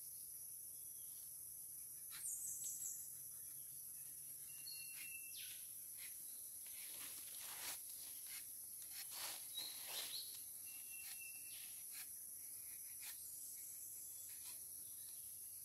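Forest ambience: a steady high insect drone with short bird chirps scattered through it. Around the middle come several brief scraping strokes, a rubber-tapping knife shaving a thin strip of bark from a rubber tree's tapping cut.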